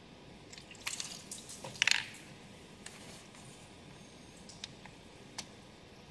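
Small clicks and knocks of a new coolant temperature sensor being handled and pushed into its port. A quick cluster of clicks about a second in, the loudest near two seconds, then a few single light clicks.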